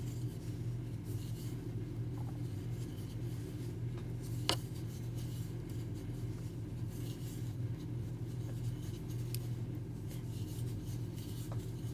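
Soft rubbing and faint scratching of a 6 mm crochet hook drawing yarn through stitches as they are worked, with one light click about four and a half seconds in, over a steady low hum.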